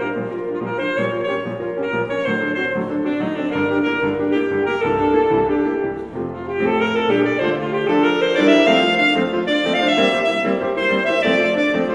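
Selmer alto saxophone playing a quick-moving classical solo line with piano accompaniment.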